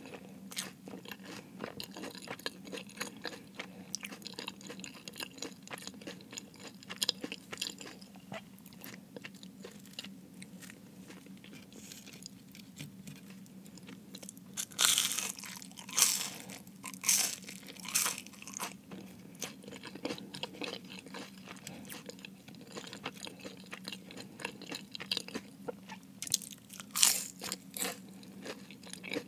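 Close-miked eating of a Jamaican beef patty: bites into the flaky pastry crust crunch, with chewing between them. The loudest crunches come in a cluster a little past the middle and again near the end.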